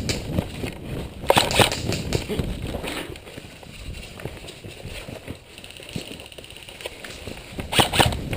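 Footsteps of a player running and moving across the field, with gear rattling. There are two louder bursts of noise, about a second in and near the end.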